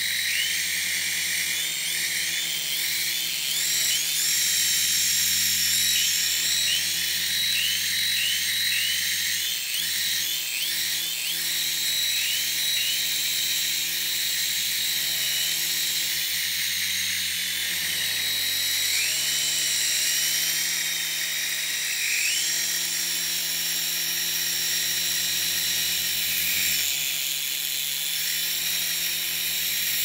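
Radio-controlled model helicopter in flight: a high, drill-like whine over a steady lower rotor hum. The pitch keeps wavering and swooping with throttle changes, dipping most deeply around ten seconds in and again around twenty seconds in.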